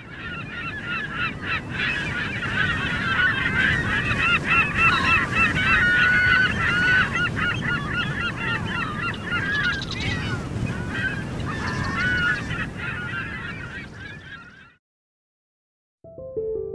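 Many birds calling at once, a dense overlapping chatter of short chirps and squeaks, over a low steady rumble of city noise. It cuts off about a second before the end.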